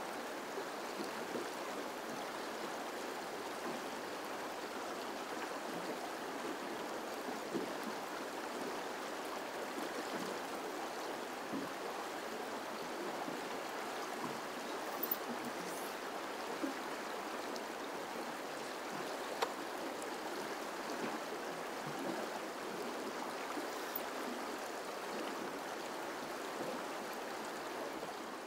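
Shallow river water running over rocky riffles: a steady, even wash of flowing water.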